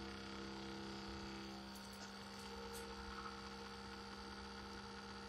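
Electric pump of a Hart 20-volt battery backpack sprayer running with a faint, steady hum.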